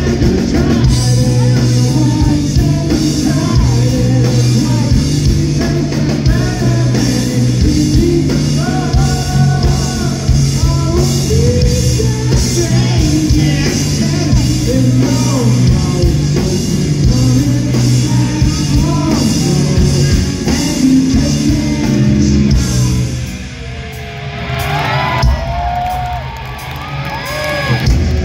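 Live rock band playing in a large hall: electric guitars, bass and drums with a lead singer. Near the end the full band drops back and the music gets quieter.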